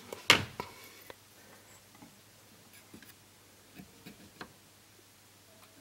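A few light clicks and ticks as multimeter test probes are set and held against a TV power supply board, with one sharper click just after the start, over a faint low hum.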